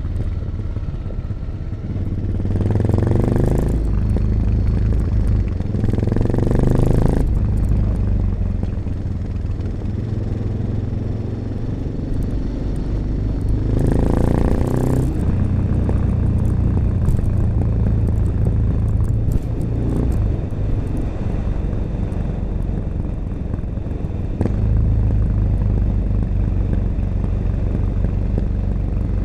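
1986 Honda XL600RM single-cylinder four-stroke engine running through an XRacing aftermarket exhaust with its dB killer fitted, heard from the moving bike. It revs up in three short pulls, about three seconds in, around six seconds and about fourteen seconds in, with steady running in between.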